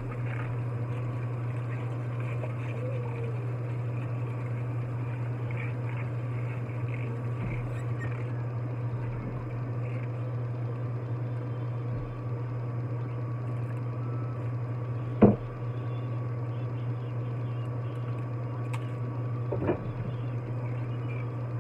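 Celery stalks being washed by hand in a bowl of water in a sink: light water sloshing and handling noises over a steady low hum. A sharp knock comes about fifteen seconds in and a smaller one near the end.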